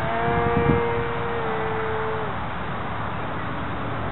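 Motor and propeller of a small scratch-built foam RC plane flying overhead, a steady whine that dips slightly in pitch and cuts off a little over two seconds in, over a steady rushing background noise.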